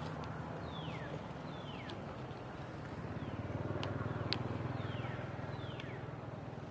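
Outdoor ambience with a steady low motor hum that swells slightly midway. Over it come several short, high chirps that each fall quickly in pitch, about one a second, and a few sharp ticks.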